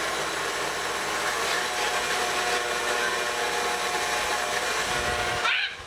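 Electric mixer running at a raised speed, its motor whining steadily as the beaters whip heavy cream. It is switched off near the end.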